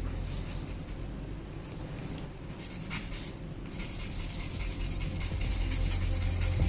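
A hand tool rubbing over a plastic Gunpla kit part in quick, repeated scraping strokes, loudest from about halfway through.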